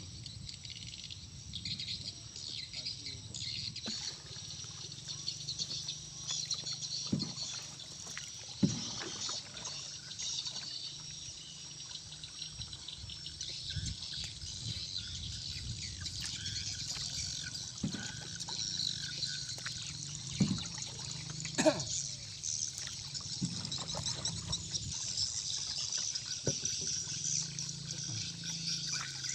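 Water trickling and lapping against a steady high chorus of insects, broken by a few sharp knocks, the loudest about a third of the way in and again past two-thirds.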